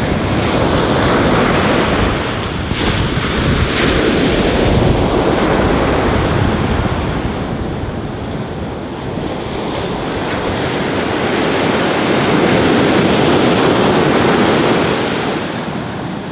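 Surf breaking on a beach, with wind buffeting the microphone; the wash swells and eases over several seconds.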